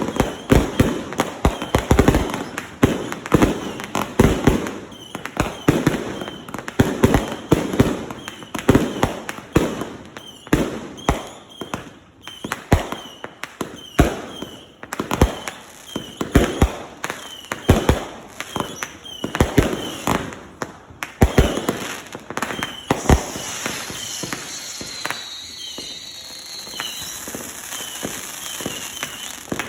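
Consumer aerial fireworks firing a rapid string of launches and bursts, several bangs a second. After about twenty-three seconds the shots thin out to a few pops over a steady crackling hiss, with a short whistle.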